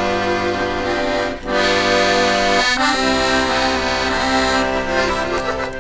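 Background music of held, sustained chords that change every second or two, with a slight dip in level about a second and a half in.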